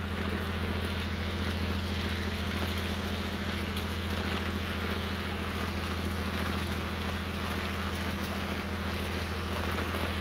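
Fishing boat's engine running steadily, a low even drone, under a steady hiss of rain.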